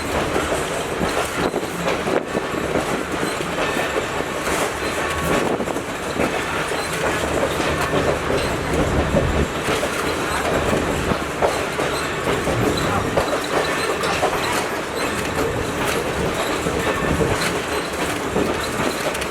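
Passenger train running along the track: a steady rumble with wheels knocking over the rail joints every second or two and some wheel squeal.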